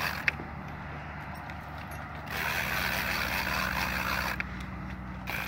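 Two-speed conventional fishing reel cranked in low gear against a hooked shark, a gritty mechanical whirr that stops and starts again about two seconds in, with a sharp click near the start.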